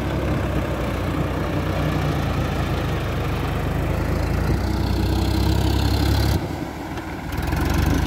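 Sonalika Tiger 55 4WD tractor's diesel engine running steadily under load as it works a rotary tiller through flooded paddy mud. The low engine note drops off about six seconds in and swells again near the end.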